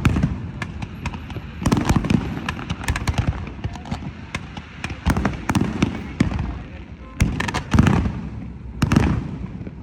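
Fireworks display: aerial fireworks going off in rapid volleys of sharp bangs, with crackling and rumbling between them. The volleys come in clusters, about two seconds in, around five seconds, and again near the end.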